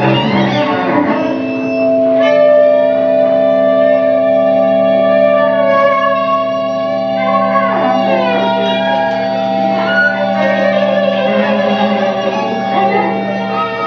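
String trio playing long, steady held tones that overlap like a drone, with several notes sliding down in pitch about seven to eight seconds in.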